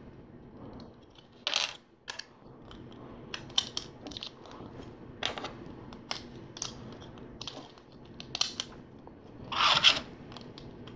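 Plastic LEGO pieces clicking and clattering as they are picked from a pile and handled, in scattered small clicks, with louder rattling bursts about a second and a half in and again near the end.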